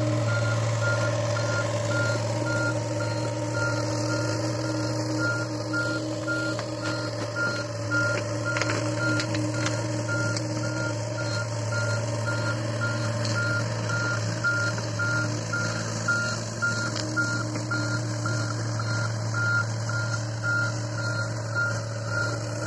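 Hitachi mini excavator travelling on its tracks, its diesel engine running steadily under a continuous, evenly spaced travel-alarm beep.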